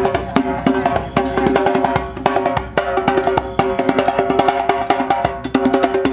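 Live percussion ensemble playing a fast, dense rhythm: a metal goblet drum (darbuka) struck by hand up front, with a drum kit and other hand drums behind it.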